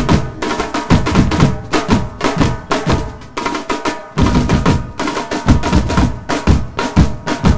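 A percussion band beats a large set of drums together, including a big barrel drum, in a fast, heavy rhythm. The playing eases briefly about four seconds in.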